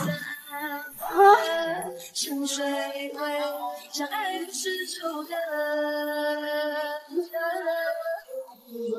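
A woman's voice singing a song over background music, with long held notes about halfway through.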